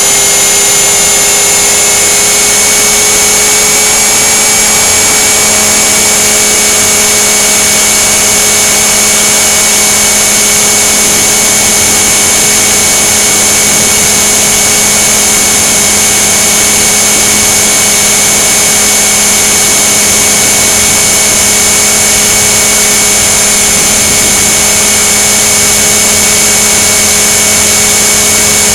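Align T-Rex 500 electric RC helicopter heard through its onboard camera's microphone: a loud, steady whine of the motor and gears over the rush of the rotor and wind, holding a constant pitch.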